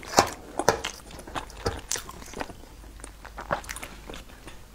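Close-miked chewing of soft, slippery, gelatinous food: wet mouth smacks and clicks, at irregular moments, growing sparser in the second half.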